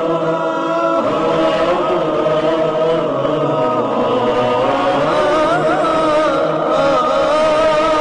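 Wordless vocal chanting from an Arabic nasheed: several held notes layered together, with a melody line wavering above them about five seconds in.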